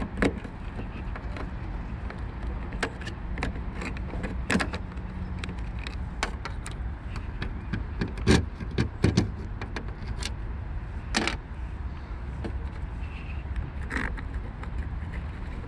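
Irregular clicks, taps and knocks of plastic tailgate trim and small bolts being handled and fitted back onto a Mercedes A-Class W169, over a steady low background rumble. There are a few louder knocks about eight to nine seconds in and again around eleven seconds.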